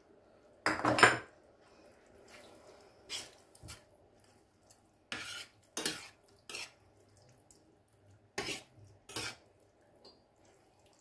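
Metal spoon clinking and scraping against a stainless steel frying pan while stirring a thick meat and tomato sauce, in a string of short strokes, the loudest about a second in.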